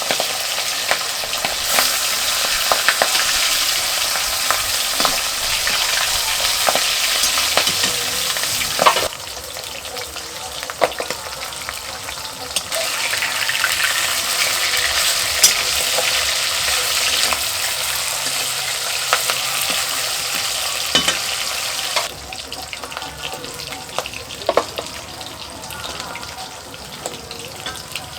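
Food frying in hot oil in a pan: a steady sizzle with scattered clicks of a utensil stirring. The sizzle drops in level about nine seconds in, comes back up a few seconds later, and drops again about twenty-two seconds in.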